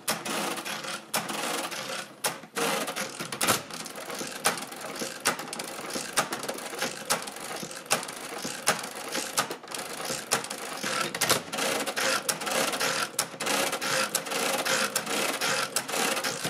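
Mercedes-Euklid model 29 proportional-lever mechanical calculator being cranked by hand through an automatic division. Its gears and levers clatter continuously, with a sharp click about once a second as it subtracts turn by turn, and the carriage shifts one step partway through.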